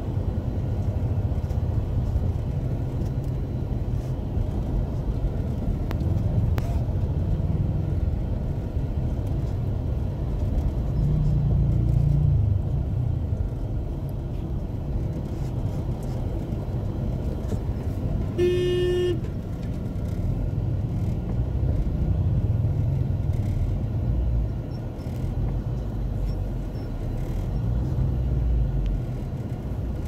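Car moving slowly over a rough, muddy dirt road, heard from inside the cabin as a steady low engine and road rumble. One short horn toot sounds about two-thirds of the way through.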